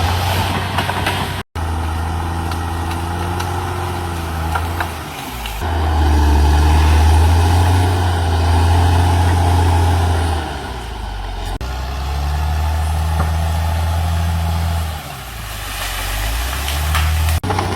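Caterpillar D6R XL bulldozer's diesel engine running hard, its pitch sagging and picking up again several times as the load comes and goes. The sound cuts out for an instant about a second and a half in.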